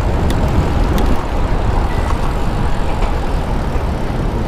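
Steady low rumble of wind and road noise from a moving bicycle in traffic, with a few faint clicks about a second in.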